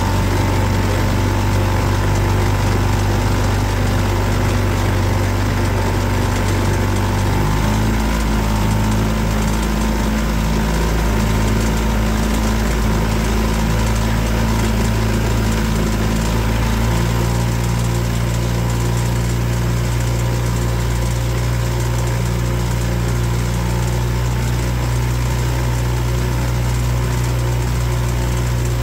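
Boat motor running steadily underway, its engine note shifting to a different pitch twice, about a quarter of the way in and again a little past halfway.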